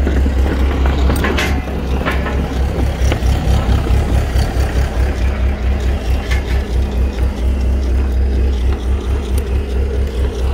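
Bobcat T190 compact track loader's diesel engine running steadily with a deep, pulsing hum. A few sharp metallic clanks come from the machine and its cement mixer attachment, two of them in the first couple of seconds and another about six seconds in.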